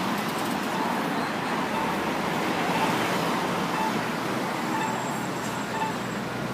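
Steady road traffic noise from cars and buses passing on a busy city street.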